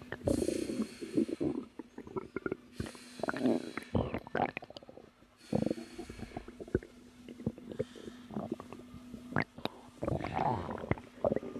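A woman's stomach growling and gurgling in irregular bursts, with many small pops and clicks: natural digestion sounds picked up close to the belly. A few soft rushes of hiss come and go.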